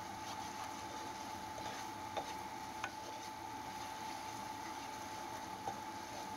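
Thick curry base bubbling and sizzling in a pan as it is stirred with a wooden spoon, with three sharp clicks along the way. A steady thin whine runs underneath.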